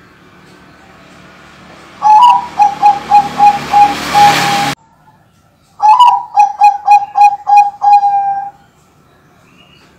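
Bangkok-type zebra dove (perkutut) cooing: two bouts of rapid staccato coos, each a quick string of about eight short notes at one steady pitch, opening on a slightly higher note. The first bout breaks off suddenly.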